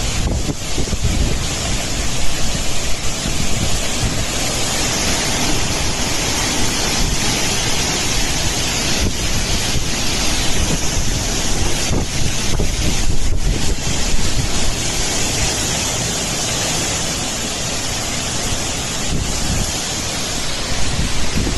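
Cyclone wind and heavy driving rain: a loud, steady rush of noise, with gusts buffeting the microphone.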